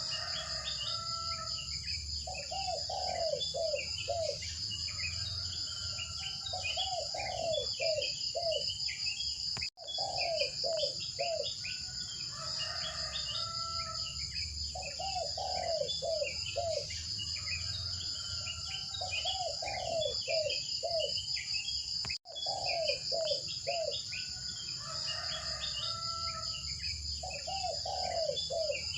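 Looped nature ambience: a steady high chirring of insects with repeated bird calls and chirps over it. The same stretch repeats about every twelve seconds, with a brief dropout twice where the loop restarts.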